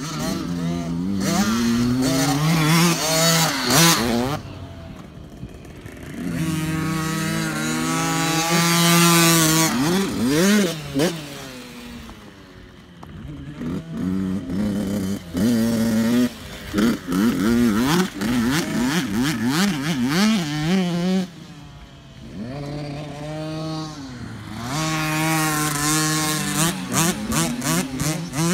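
Kids' dirt bikes running on a motocross track. The engine pitch climbs and drops again and again as the riders rev through the gears and pass by, with a quieter lull twice as a bike moves away.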